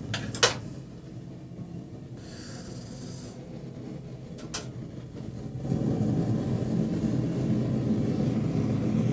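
Gas torch flame burning steadily while it heats a piece of copper to anneal it, with a couple of sharp clicks about half a second in and again near the middle. The flame noise gets clearly louder about six seconds in.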